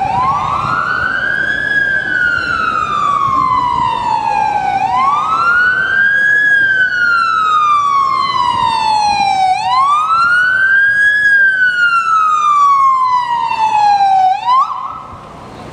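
Police car siren in wail mode. Each cycle rises quickly and falls slowly, and the cycle repeats about every five seconds. After three full cycles it gives a short higher tone and cuts off near the end.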